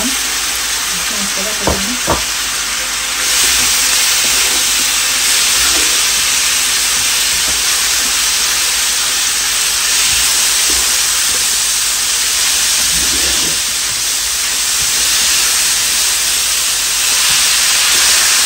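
Mutton pieces sizzling in hot oil with browned onions in an electric frying pan, turned with a spatula. Two light knocks come about two seconds in, then the sizzle swells about three seconds in and stays steady.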